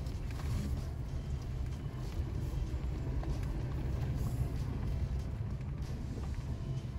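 Toyota Tacoma heard from inside the cab while driving along a dirt trail: a steady low rumble of engine and tyres over the rough ground.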